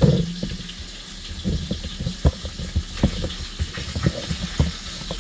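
Irregular knocks and clicks of a camera tripod being handled as its height is raised, with a loud thump at the start. Under them runs a steady hiss of chicken frying in a cast iron skillet.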